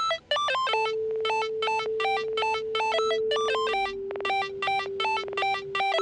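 Electronic synth music: a quick repeating pattern of short bell-like notes, about four a second, over a held tone that steps down in pitch about halfway through.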